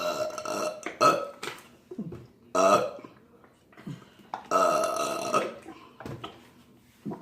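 A person burping on purpose, about four loud burps one after another, the longest lasting about a second a little past halfway. They are forced burps in a contest to do as many as possible in a minute.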